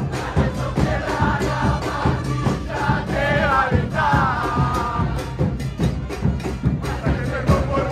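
Football fans singing a chant together over bass drums beaten in a steady rhythm. A trumpet plays along, standing out about three seconds in.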